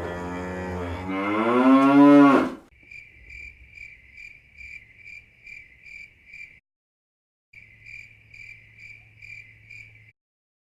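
A cow gives one long, wavering moo that swells louder toward its end. A cricket then chirps steadily, about three chirps a second, in two runs with a pause of about a second between them.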